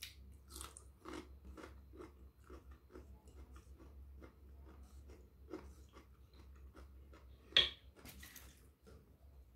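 Crunchy chewing of raw cabbage, about two crunches a second, with one louder, sharper crunch near the end.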